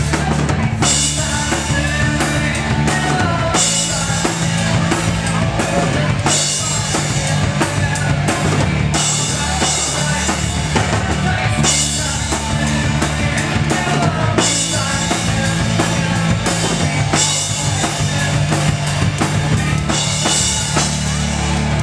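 A live rock band playing loud: a drum kit with a crash cymbal hit every few seconds over a steady heavy bass and electric guitar.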